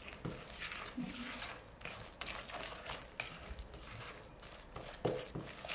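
A spatula stirring thick cocoa cookie batter in a glass bowl: repeated soft scraping strokes against the glass and through the dough.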